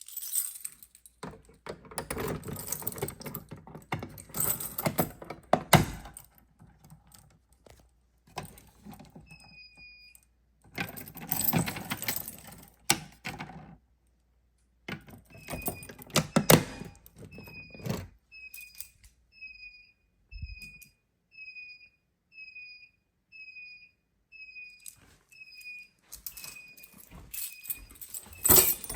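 Bursts of rattling and clattering handling noise, with thuds. From about nine seconds in, a short high chirp that falls slightly in pitch repeats about every 0.8 seconds.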